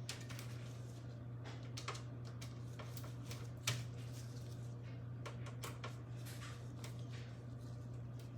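Scattered small clicks and taps of hands handling computer fan and case parts, with one sharper knock about three and a half seconds in, over a steady low hum.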